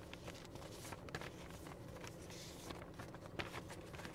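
Faint rustling and soft taps of paper envelopes being shuffled in the hands, with one slightly louder rustle a little past three seconds in, over a steady low hum.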